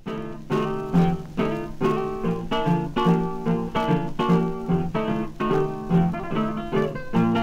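Intro music: acoustic guitar playing a steady rhythm of plucked notes.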